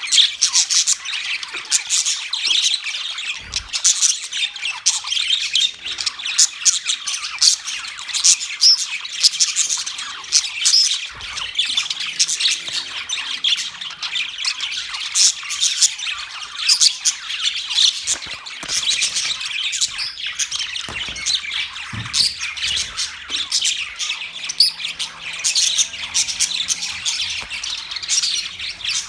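Budgerigars chirping and chattering: a dense, unbroken stream of short high chirps.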